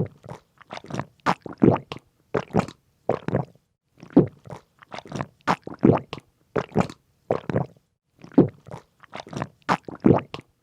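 A person chewing crunchy food with the mouth, a steady run of wet crunches about three a second.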